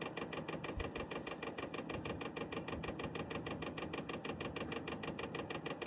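Vevor diesel heater's fuel metering pump clicking rapidly and evenly, about nine ticks a second, while priming fuel from the tank toward the combustion chamber.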